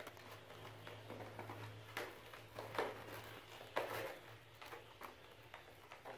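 Kittens scrabbling and shuffling about in a plastic crate: scattered soft scrapes and knocks, the sharpest a little after two seconds in and near four seconds in. A low steady hum runs underneath and fades out about four seconds in.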